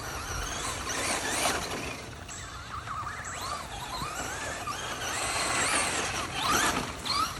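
Electric RC truck's motor whining, the pitch rising and falling repeatedly as it speeds up and slows.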